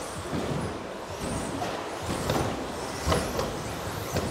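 Brushless electric 1/10 RC stadium trucks running on an indoor carpet track: a steady mix of tyre and drivetrain noise broken by several sharp clacks and thumps as the plastic-bodied trucks land jumps and hit the track.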